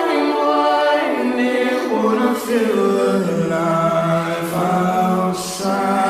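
Music of a cappella voices singing long held notes that step downward in pitch during the first half.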